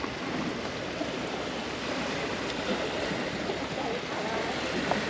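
Steady rush of moving water.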